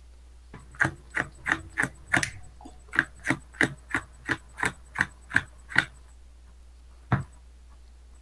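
Playing cards being counted off a deck one at a time, each one tapped down onto the table: a quick run of about fifteen sharp clicks at roughly three a second, then one more a little later. This fits twenty cards being counted out for a Necropotence activation.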